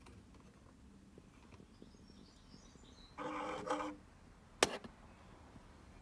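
Quiet outdoor background with faint bird chirps. About three seconds in, a short steady-pitched sound lasts under a second, and a sharp click follows about a second later.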